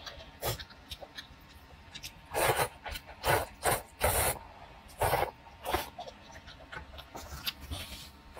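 A person slurping sour rice noodles and spicy broth from a bowl: a run of about six short, loud sucking slurps in the middle, with quieter mouth sounds and chewing ticks between them.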